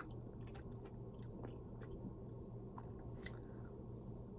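Faint mouth sounds of a person chewing a soft chocolate chip protein cookie: small scattered clicks, with one sharper click a little after three seconds in, over a steady low hum.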